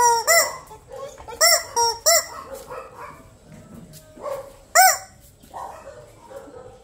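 Squawking rubber-chicken dog toy being squeezed: a run of short squawks, each rising and falling in pitch, several in quick succession at the start and another loud one about five seconds in.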